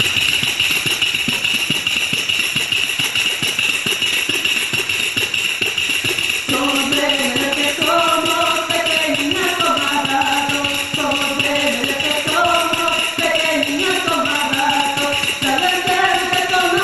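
Galician pandeireta (hand tambourine with jingles) played in a steady, fast rhythm of shakes and strikes. About six seconds in, a woman starts singing over it.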